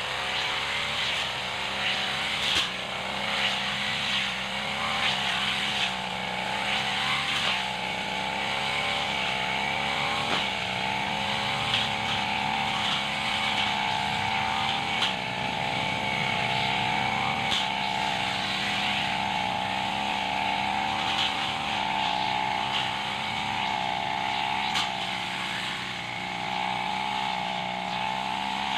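Backpack brush cutter's small engine running steadily at high speed as the blade cuts through grass and weeds, with a few short sharp ticks where the blade strikes stems.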